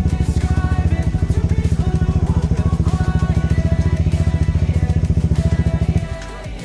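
Motorcycle engine running with a steady low chugging pulse, about a dozen beats a second, which stops about six seconds in. Music plays over it.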